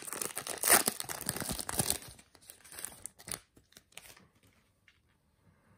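Foil trading-card pack being peeled apart and its wrapper crinkling, densest and loudest in the first two seconds. It then thins to scattered fainter crackles and clicks as the wrapper and cards are handled.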